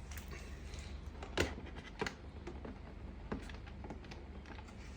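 Mini claw machine toy being handled during assembly: a few scattered light clicks and knocks, the clearest about a second and a half in, over a faint steady low hum.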